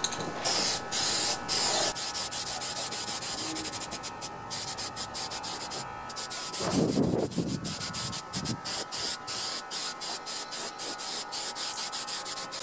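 Aerosol spray can hissing in many short bursts as its nozzle is pressed on and off, with a brief lower-pitched sound about seven seconds in.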